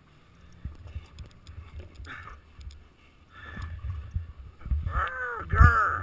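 A German Shepherd tussling with a rider's gloved hand, heard as muffled thumps and rustling on the camera. From about five seconds in comes a quick run of short, high, rising-and-falling yips or whines from the dog, loudest near the end.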